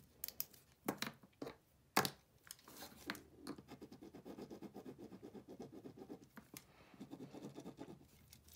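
A few sharp clicks as pens are put down and picked up, the loudest about two seconds in, then a pen tip scribbling quickly back and forth on lined paper in a fast, even scratching rhythm.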